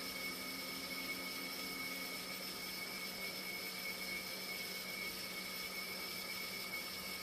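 Steady machinery hum with a low drone and two constant high-pitched whines over an even hiss, unchanging throughout.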